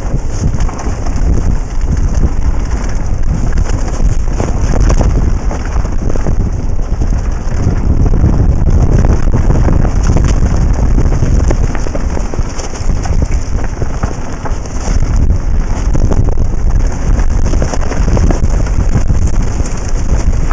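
Loud wind buffeting on a helmet-mounted camera while riding a mountain bike fast down a rough dirt trail, with a deep rumble and many small rattles and clicks from the bike and helmet over the bumps.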